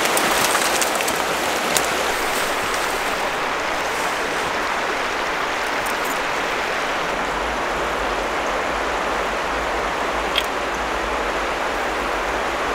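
River water flowing steadily, with a couple of faint clicks.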